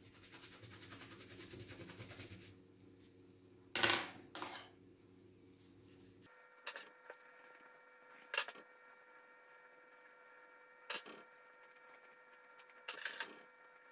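Light clicks and clatters of small hard parts being handled, a few seconds apart, with a hiss for the first two seconds or so. Under them runs a steady chord of held tones that shifts to a higher chord about six seconds in.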